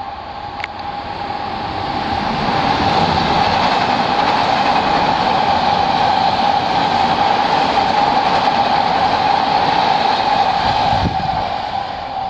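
Odakyu 5000 series electric commuter train passing close by on the tracks, a steady running noise with a high tone through it. It builds over the first few seconds, holds loud while the cars go by, and fades near the end.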